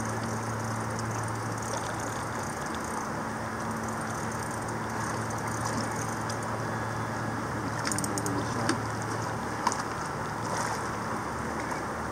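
Steady rush of a fast-flowing river, with a low steady hum underneath that stops about three-quarters of the way through. A few sharp clicks come near the end.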